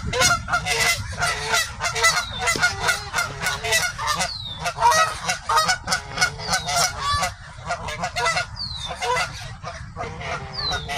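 Geese honking in rapid, overlapping calls as they fight. The calls thin out after about seven seconds.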